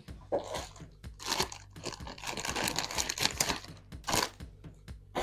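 Plastic breast milk storage bags crinkling and crackling as one is pulled out of its pack, a busy run of irregular rustles.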